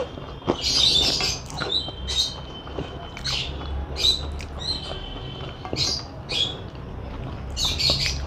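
Close-up eating sounds: wet chewing and lip smacks, coming as short sharp squelchy bursts at irregular intervals, about one or two a second.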